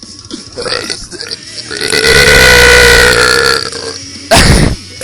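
A person burping on purpose: one long, loud burp of about two seconds, then a short, sharp second burp near the end.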